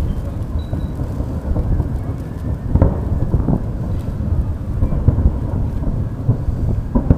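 Aerial fireworks going off: a dense run of low booms, with sharper bangs about three seconds in and again near the end.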